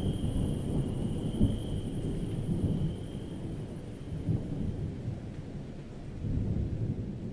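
Low rolling rumble of thunder, uneven and slowly growing quieter. A faint high steady tone fades out about three seconds in.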